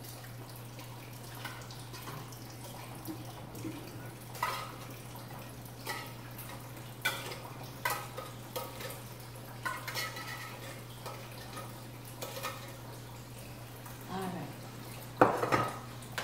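Metal kitchen utensils clinking and scraping against cans and a skillet in irregular knocks every second or so, with a louder clank near the end, over a steady low hum.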